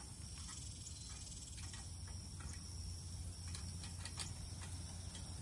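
A few faint, irregular clicks of high-tensile fence wire being handled and tied off to an end insulator on a steel pipe brace, over a low steady rumble.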